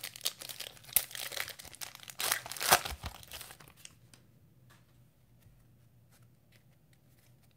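Foil wrapper of a Panini Mosaic basketball card pack being torn open and crinkled for about three and a half seconds. Then faint clicks of the stack of cards being handled.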